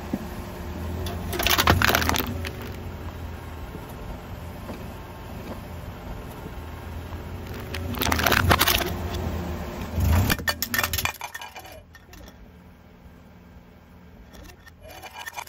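Aluminium drink can crushed under a car tyre: loud metallic crunching about two seconds in, and again around eight and ten seconds in, over the low rumble of the car rolling. The sound drops away near the end as the car moves off.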